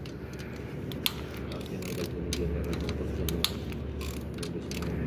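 Ratchet wrench clicking in quick, uneven runs as rocker arm bolts are loosened on a 2016 Chevrolet Suburban engine's cylinder head, over a steady low hum.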